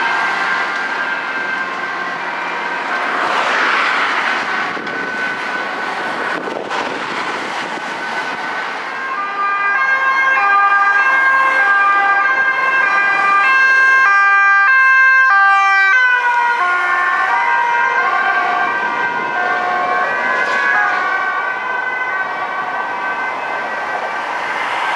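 Dutch police car sirens over road traffic. About ten seconds in, a two-tone siren switching back and forth between two pitches grows louder, peaks around fifteen seconds, and drops in pitch as the car passes.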